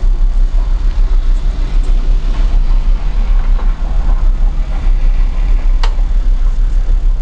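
Steady loud low rumble, with a single sharp click near the end.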